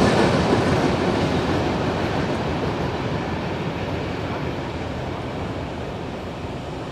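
CSX freight train moving away past the crossing, its noise fading steadily.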